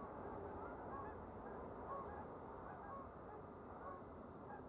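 A flock of geese honking: many short, irregular calls, several a second, over a faint low rumble.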